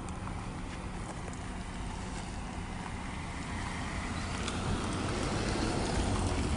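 A car moving slowly close by, engine and tyre noise with low wind rumble on the phone's microphone, growing louder as it comes near.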